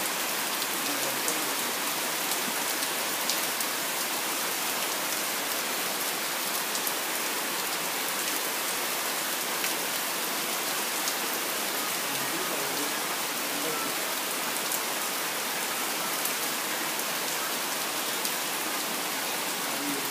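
Steady rain pouring onto tree leaves and wet paving: an even hiss with the sharper ticks of single drops scattered through it.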